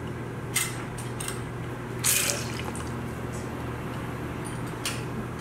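Bar tools and a squeezed lemon being handled on a bar counter: a few light knocks and clinks, the loudest about two seconds in, over a steady low hum.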